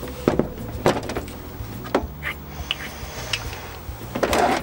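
Heavy AGM car battery being lowered into its tray in the boot by its carry handle, with several sharp knocks as the case bumps against the tray and trim, and a louder clatter near the end as it is set down.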